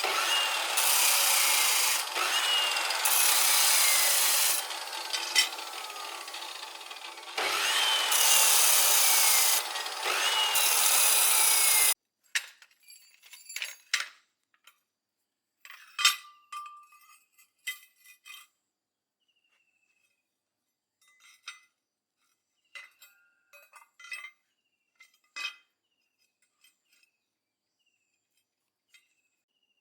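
Rasping, saw-like tool work in uneven strokes with falling whines, which stops abruptly about twelve seconds in. After that there are only scattered clicks and a few short chirps, like birds.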